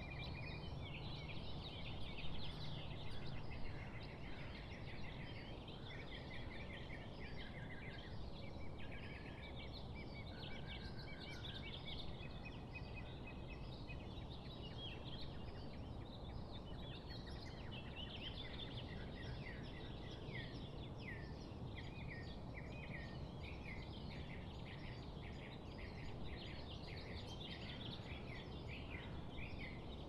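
Several small birds chirping and calling without pause, many quick short notes overlapping, over a steady low rumble of breeze that is a little stronger in the first few seconds.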